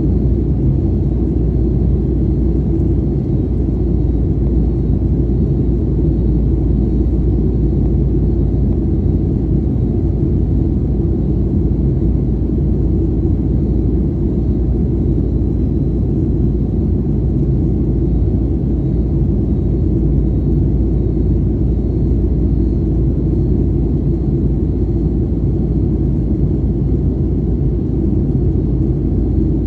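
Steady deep rumble of engine and airflow noise inside a Boeing 737's cabin in flight, with a faint steady high whine above it.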